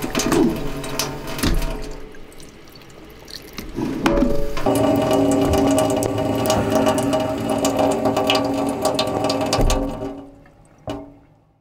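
A kitchen faucet runs a thin stream into a stainless steel sink, then comes clattering and knocking as the camera is handled. From a few seconds in, steady held tones of background music sit under the handling noise, and everything fades and cuts off near the end.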